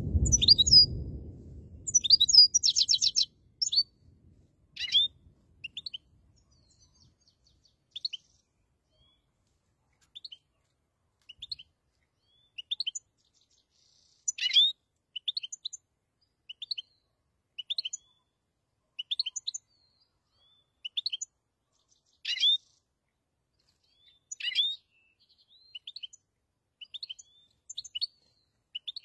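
European goldfinch of the black-headed form calling: short high twittering notes, mostly in clusters of two or three every second or two, with a quick buzzy trill about three seconds in. A low rumble sits under the calls for the first couple of seconds.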